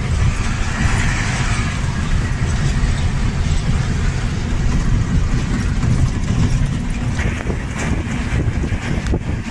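Inside the cab of a moving truck at highway speed: steady engine drone with road and wind noise, and a few light knocks near the end.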